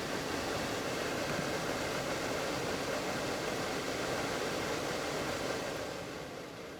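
BMW E9 heater blower fan running fast, a steady rush of motor and air, slowing and fading near the end.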